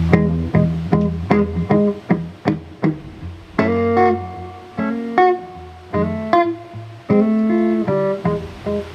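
Guitar playing the instrumental introduction to a slow ballad: a run of picked notes, about two a second, over sustained low bass notes.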